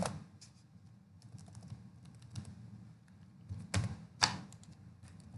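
Typing on a computer keyboard: a scattering of light keystrokes, with a few sharper clicks at the start and twice about four seconds in.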